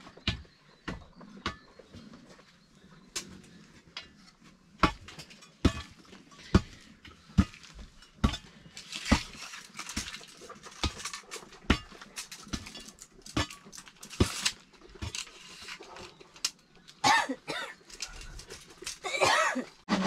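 Short-handled hoe chopping into hard packed earth, dull knocks coming roughly once a second. Between some strokes there are stretches of scraping as soil is loosened and dragged.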